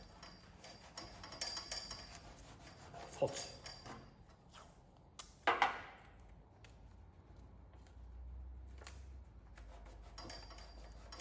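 Paper template and masking tape being rubbed and pressed by hand onto a steel tailgate panel, with a brief sharp rasp about five and a half seconds in.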